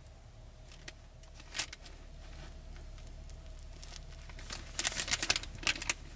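Crinkling and rustling of something being handled: a few light clicks, then a dense burst of crinkling from about four and a half seconds in. A steady low hum runs underneath.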